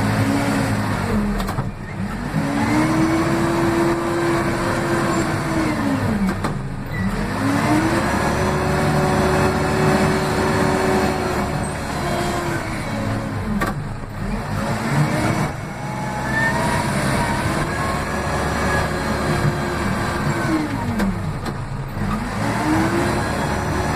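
Case 580M backhoe loader's four-cylinder diesel engine, heard from inside the cab, revving up and down over and over: the revs climb, hold high for several seconds, then drop back before climbing again.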